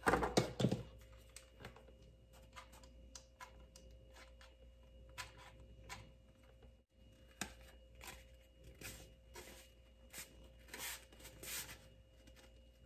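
Cardboard tubes and a card square being handled and pressed together with hot glue: light rustles, taps and scrapes of cardboard, louder in the first second.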